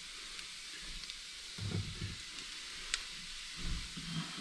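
Onions frying in butter in a pan with a faint steady sizzle. Twice, at about the second and fourth second, soft thuds and rustling as a handful of chanterelle mushrooms is tipped into the pan.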